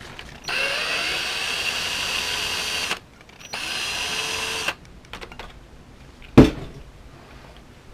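Cordless power driver whirring in two runs, the first about two and a half seconds long with the motor spinning up at its start, the second just over a second, as it backs out a small screw. A single sharp knock follows a little before the end.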